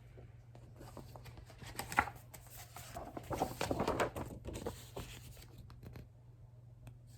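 Paper rustling and crinkling with small sharp clicks as the pages of a picture book are handled and turned. There is a sharp click about two seconds in, and the loudest rustle comes a little past the middle.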